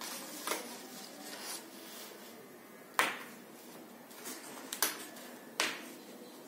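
Paper cutouts being handled and pulled off a display board: faint paper rustling with a sharp click about three seconds in and two more, smaller ones a couple of seconds later.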